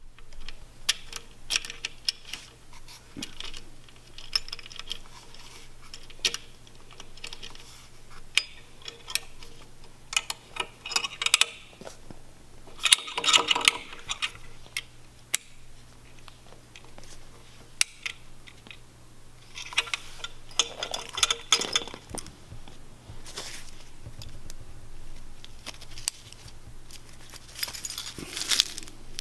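Small metal hardware clicking and clinking as it is handled and fitted by hand: a wing nut, a metal ring and clips going onto a metal frame, with a few louder rustling stretches and a faint steady hum underneath.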